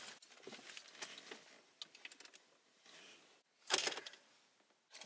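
Brief scuffle in a car's front seats: clothing rustling against the seats with small bumps and clicks, and a louder burst of rustling a little under four seconds in.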